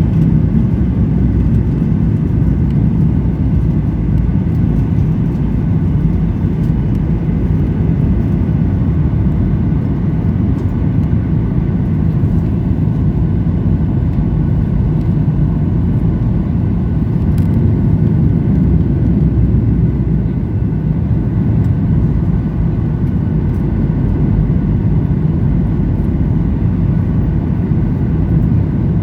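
Cabin noise inside a Boeing 737-900ER in flight: a steady low rumble of its CFM56-7B engines and the airflow over the fuselage, with no sharp change in level.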